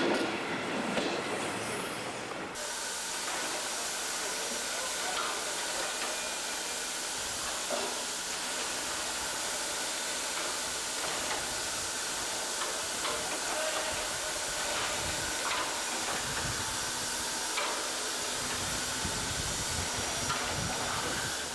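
Running noise of a train rolling along the track, heard from a carriage, which cuts off after about two and a half seconds. It gives way to a steady hiss of steam from a steam locomotive, with a few low thumps near the end.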